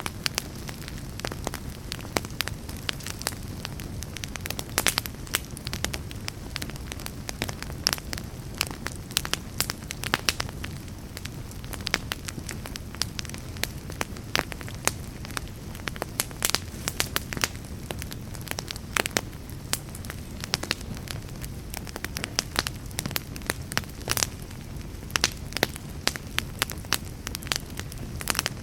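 Fire burning in a fireplace: a steady low rush of flames with frequent irregular crackles and pops.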